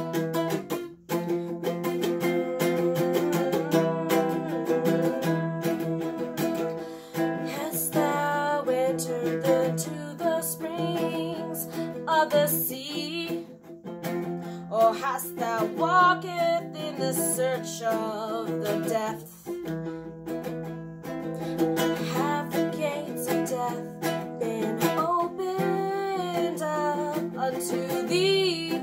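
A woman singing verses of scripture over a strummed ukulele accompaniment.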